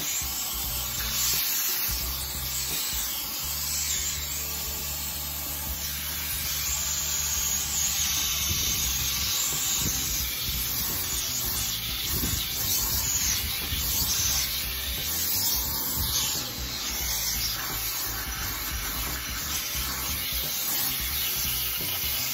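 HART 10-gallon wet/dry shop vacuum running, its crevice nozzle sucking air over car carpet with a steady hiss.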